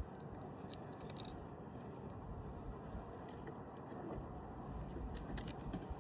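A few light metallic clicks and clinks of small hardware (washers and ring terminals) being handled, scattered over a steady low background rumble.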